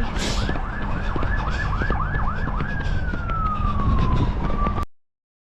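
Emergency vehicle siren in a fast yelp, quick rising-and-falling sweeps about three a second, that switches to a slow falling wail, over a heavy low rumble. It cuts off suddenly near the end.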